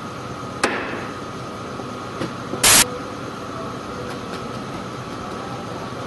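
Wooden door-frame parts knocked together as the top rail is fitted onto the stiles: a sharp click about half a second in, then a louder short knock a little before the middle, over a steady faint hum.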